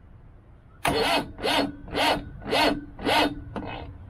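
Starter cranking the 1989 Mahindra jeep's diesel engine slowly, with five even compression pulses about two a second, without it catching; it stops with a click. The owners take the failure to fire for diesel not reaching the engine, or possibly a weak battery.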